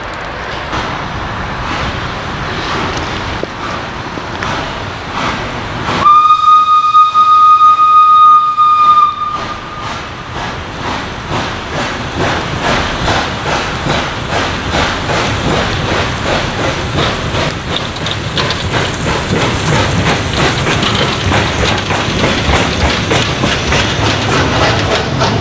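A Krupp fireless steam locomotive hauling a train of tank wagons, with one loud, steady steam-whistle blast about six seconds in that lasts around three seconds. Afterwards the wagons roll past close by, and the wheels click rhythmically over the rail joints, growing louder towards the end.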